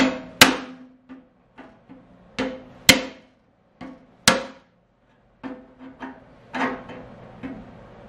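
Screwdriver being struck to drive a knockout out of a steel fire alarm panel enclosure: sharp metallic knocks at an uneven pace, three loud ones and several lighter taps, the hollow box ringing briefly after each.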